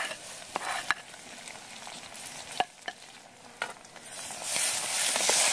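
Bird meat frying in oil in a cooking pot, with a utensil clicking and scraping against the pot. About four seconds in, the sizzling swells into a loud hiss.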